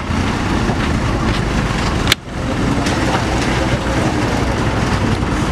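Engine of a loaded Mitsubishi light truck running steadily as it crawls through mud. A sharp click about two seconds in is followed by a brief dip in the sound.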